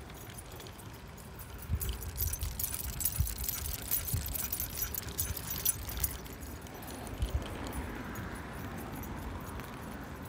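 Metallic jingling and rattling from a recumbent trike riding over cracked asphalt, strongest from about two to six seconds in, with a few short low thumps.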